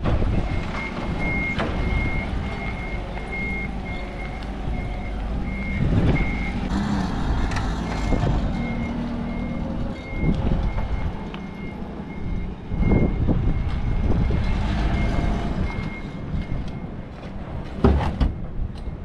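Forklift's warning beeper sounding a steady series of short high beeps while its engine runs as it moves with a car on its forks; the beeping stops a few seconds before the end. A few knocks and clunks come through, the loudest near the end.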